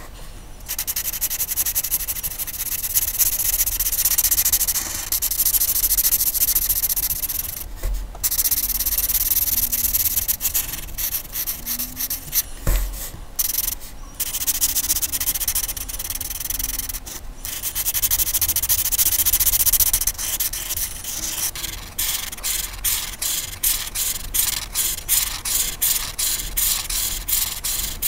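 A colouring tool scratching across paper in long strokes with short pauses. Near the end it turns into quick, even back-and-forth strokes, about three a second.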